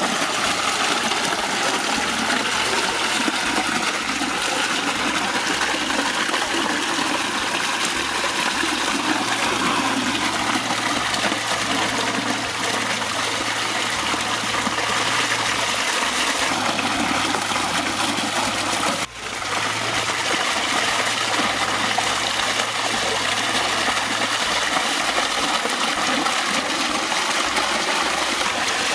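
Water gushing up from a ground-level pipe outlet and splashing, a steady rush, while chunks of goat meat are rinsed by hand in the flow. The sound drops out briefly once, about two-thirds of the way through.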